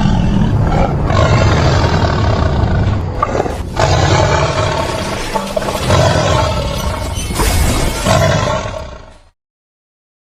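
Loud roaring, growling sound effects over music, rising and falling in several swells, then cutting off suddenly a little after nine seconds.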